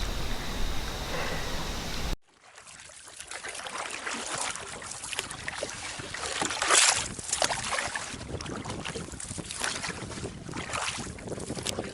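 Small waves lapping and slapping against a canoe hull in irregular little splashes, with wind on the microphone. A sudden cut about two seconds in is preceded by a steady rushing noise.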